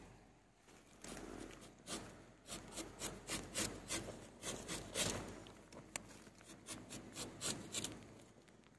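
Rubber-tapping knife shaving a thin strip of bark from a rubber tree along the tapping cut: a run of short, quiet scraping strokes, two or three a second, starting about a second in.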